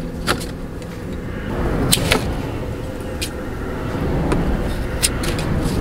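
Scissors snipping through thick faux locs: several sharp cuts, some in quick pairs, over a steady low rumble.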